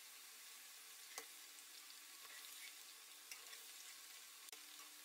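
Faint sizzling of small stuffed dough parcels (potli) deep-frying in oil at medium heat, with a couple of sharp clicks from the wire spider skimmer against the pan as they are turned.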